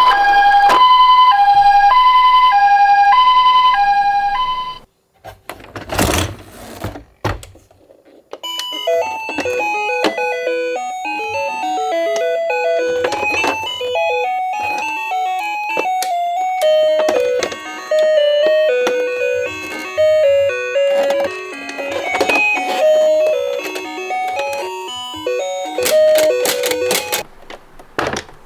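Toy ambulance's electronic two-tone "pee-po" siren, alternating between a higher and a lower note about once a second, which stops about five seconds in. After a brief pause with some rustling, light plucked-string background music plays.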